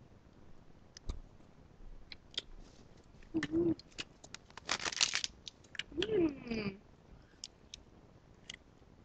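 Small clicks and taps of a yellow plastic surprise-egg toy capsule being handled and opened, with a short noisy burst about halfway. Two brief wordless vocal sounds from a girl break in, the second sliding down in pitch.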